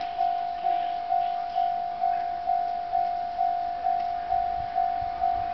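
Japanese railroad level-crossing warning bell ringing: one electronic ding of a single pitch, repeated a little over twice a second, each stroke fading before the next. It signals that a train is approaching the crossing.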